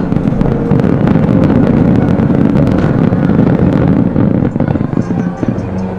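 Fireworks display in full flow: a continuous heavy rumble of bursts overlaid with rapid crackling, easing slightly near the end.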